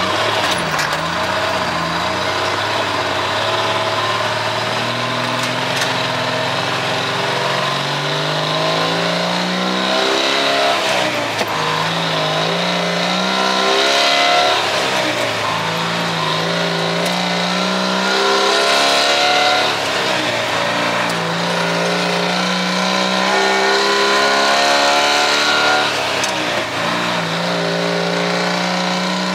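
Old White 4000 truck's diesel engine heard from inside the cab, accelerating through the gears. The engine note climbs in pitch, then drops back at each of several gear changes.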